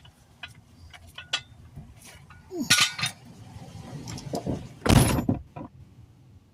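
Tools and gear being handled: scattered clinks and knocks, with two louder clattering bangs about three and five seconds in.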